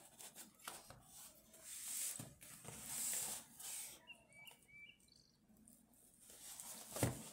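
Faint rustling and light clicks of a cardboard gift box of tea glasses being handled and shifted, with a brief high chirp-like tone near the middle and a soft thump near the end.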